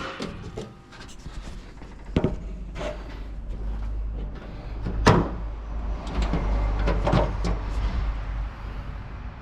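A series of sharp knocks and clunks, about five spread over the span, the loudest about halfway, over a steady low rumble.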